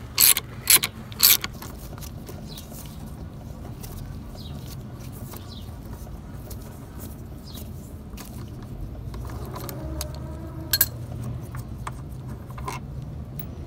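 Socket ratchet clicking three times in quick succession on a bolt of a scooter's front brake caliper, then a steady low hum with a couple of single metal clicks later on.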